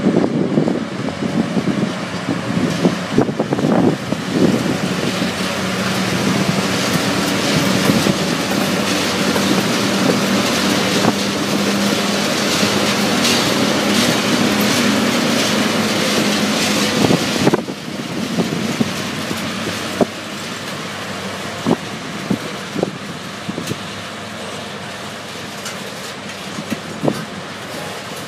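TasRail diesel locomotives working up a grade as they pass close by, their engines loud and steady. About 17 seconds in the locomotives are past and the sound drops to the rumble of loaded container wagons, with sharp clicks of wheels over rail joints.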